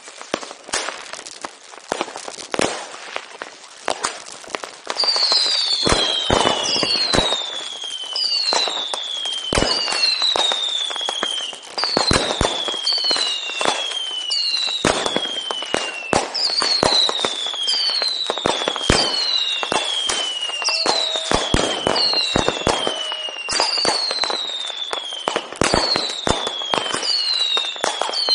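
New Year's Eve fireworks: a dense run of firecracker bangs and crackling. About five seconds in it grows louder, and whistling fireworks join in, each a high whistle falling in pitch, about one a second, over the continuing bangs.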